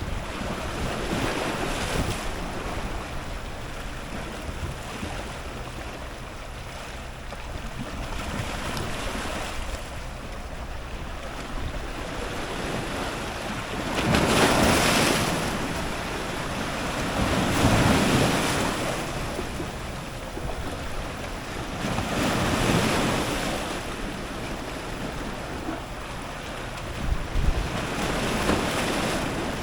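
Strong ocean surf breaking on rocks close to the microphone, each wave swelling into a loud rushing wash and then fading, several times, the biggest about halfway through. Wind rumbles on the microphone underneath.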